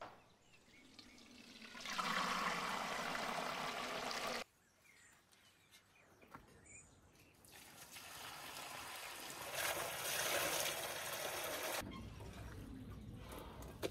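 Liquid being poured into large metal pots and basins, splashing and trickling in two long pours, the first cutting off suddenly about four seconds in.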